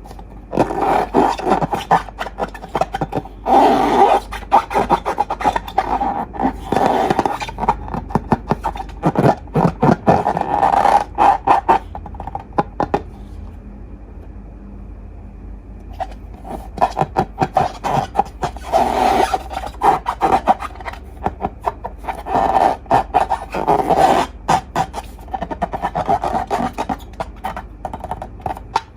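Slime being worked by hand, with dense sticky crackling, clicking and squishing in two long stretches and a pause of a few seconds in the middle.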